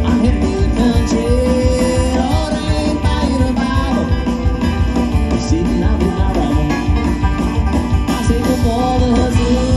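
Live bluegrass-style band playing with an acoustic guitar strumming, a banjo picking and drums keeping a steady beat, amplified through stage speakers.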